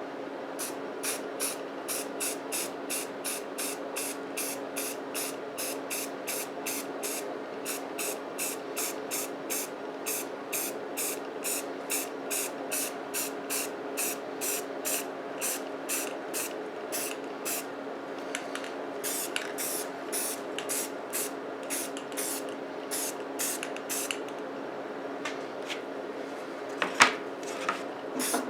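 Aerosol can of Rust-Oleum flat black primer spraying in short, quick strokes, about two a second, with a couple of brief pauses, as a coat of primer goes onto a carved wooden sign. A single sharp clink sounds near the end.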